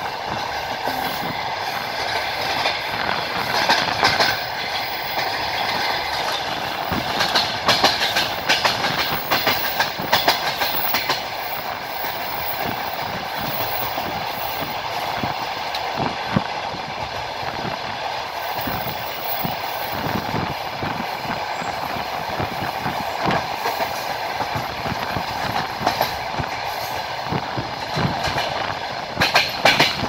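Passenger train carriage running along the track: a steady rolling rush with clusters of wheel clacks over rail joints, about four seconds in, again from about seven to eleven seconds in, and near the end.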